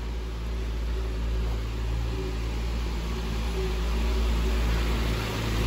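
Parked box truck running, a steady low mechanical hum with a few held tones, growing gradually louder as it is approached.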